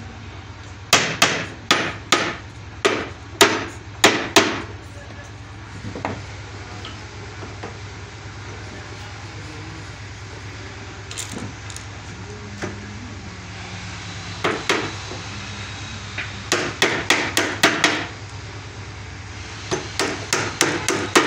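Hammer striking nails into wooden boards in bursts of quick blows, about two a second, with pauses between the bursts. A steady low hum runs underneath.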